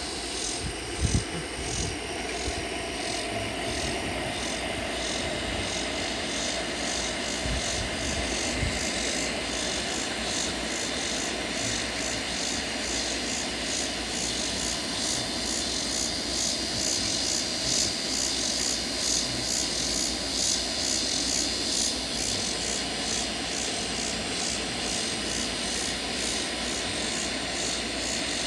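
A steady droning hum from the sky, with a chorus of insects the uploader calls locusts buzzing high over it in an even, rhythmic pulse. A couple of low thumps come about a second in.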